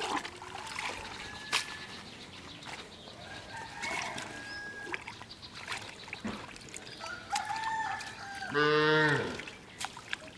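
A farm animal calls once, loudly, for about a second near the end, over light splashing from hands working in shallow muddy water.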